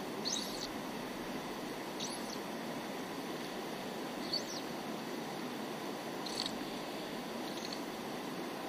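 River current rushing steadily over a rocky bed. Over it, a bird gives a short high call, rising and falling, about every two seconds, five times.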